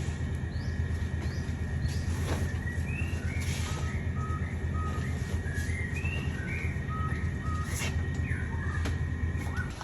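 Small birds chirping in short, repeated notes over a steady low rumble.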